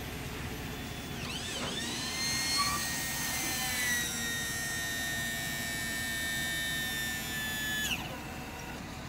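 Hi-rail truck's guide-wheel lift pump whining as the rail wheels are raised to take the truck off the track. The whine rises quickly about a second in, holds steady, drops slightly about four seconds in, and cuts off sharply about eight seconds in.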